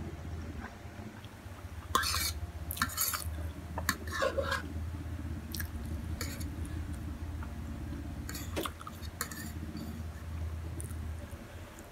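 Eating sounds from a bowl of Samyang spicy instant noodles: a utensil scraping and clinking against the bowl several times, with chewing, over a steady low hum.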